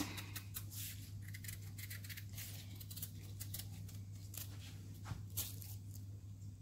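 Kitchen knife shaving the skin off a piece of pumpkin in a quick run of short scraping strokes.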